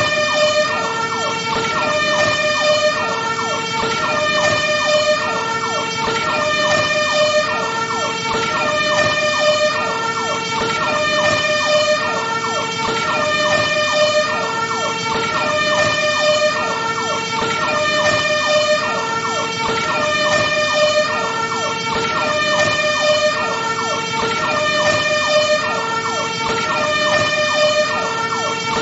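Fire truck siren sounding a two-tone hi-lo wail, switching between a lower and a higher note about once a second and repeating steadily, over a constant noisy background.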